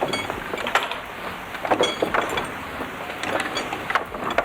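Irregular knocks and clatter of wood and metal from work on a wine barrel, with a brief metallic ring about a tenth of a second in.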